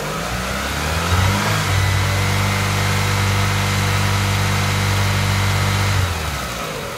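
Chevrolet Cruze's 1.6-litre F16D3 E-TEC II 16-valve four-cylinder engine revving up to about 3000 rpm and held there steadily, then dropping back toward idle near the end.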